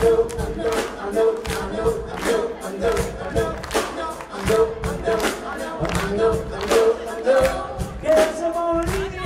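Live band music with a steady drum beat, about two beats a second, under sustained chords.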